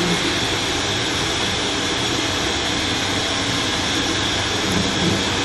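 Electric hand dryer running with a steady, loud whoosh of air.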